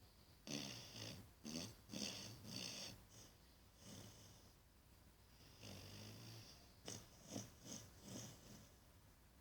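Australian Shepherd–Labrador mix puppy snoring and making snorting noises in its sleep while dreaming. A quick run of short bursts comes in the first few seconds, a longer held one past the middle, and another quick run near the end.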